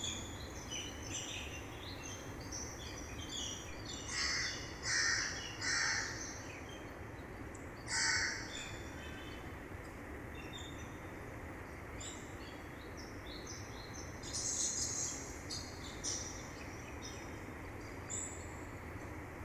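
Mountain river rushing steadily, with many small birds chirping over it. Louder bird calls stand out: three in a row about four to six seconds in, one at about eight seconds, and a cluster around fifteen seconds.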